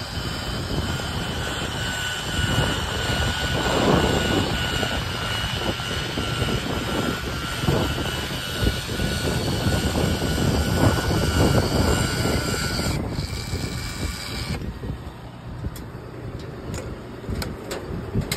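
Steady outdoor rumble with wind on the microphone, under a continuous mechanical whine that cuts off about 13 seconds in; a few sharp clicks follow near the end.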